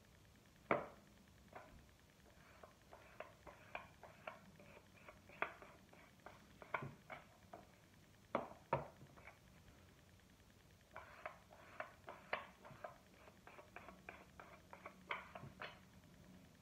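Faint, irregular small clicks and taps from hand work with clay and pottery tools on a work table, several a second in two clusters with a short lull between.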